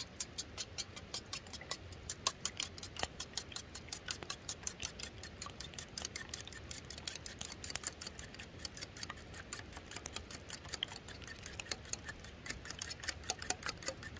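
Eggs being beaten for scrambling: a utensil clicking rapidly and fairly evenly against its container, about seven clicks a second, with brief pauses and changes of pace.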